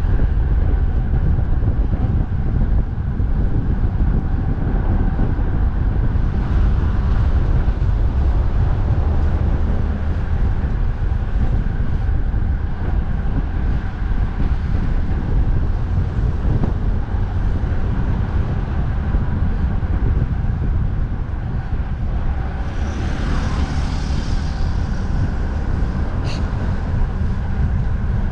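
Strong wind buffeting the microphone over steady road traffic noise, with a brief swell of hiss near the end.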